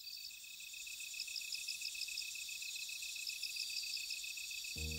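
Crickets chirping in a steady, rapid pulse with scattered higher chirps above, slowly growing louder. Music comes in just before the end.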